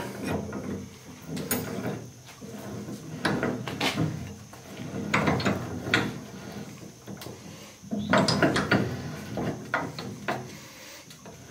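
Ratchet wrench clicking in short bursts as a bolt is tightened down, fastening a steel tooth bar to a loader bucket. The bursts repeat every second or few, one per swing of the handle.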